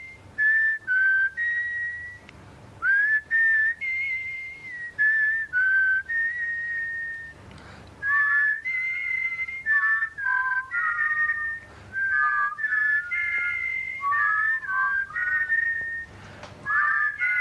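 A tune whistled by mouth, with a second whistled line in harmony joining about eight seconds in.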